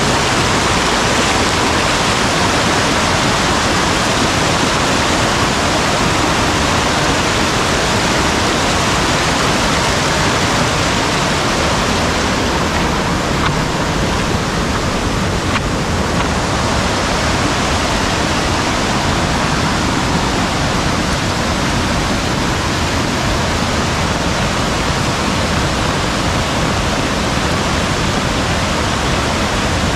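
Loud, steady rush of water from a mountain valley stream swollen by heavy rain.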